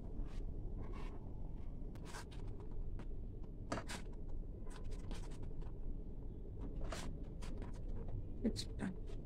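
Silicone spatula stirring and scraping thickening chocolate syrup around a metal pan, a run of short, irregular scrapes and soft clicks.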